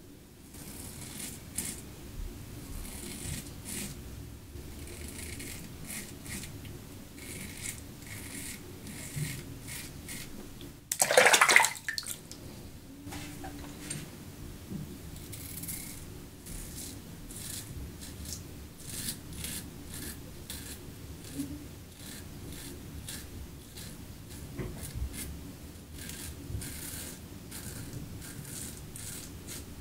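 Soviet T-shaped double-edge safety razor with a Derby blade scraping through lathered stubble in many short, irregular strokes. About eleven seconds in, a brief rush of running water, about a second long, as the razor is rinsed under the tap.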